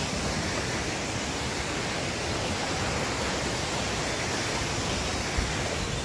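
Steady, even rush of a waterfall and its rocky stream.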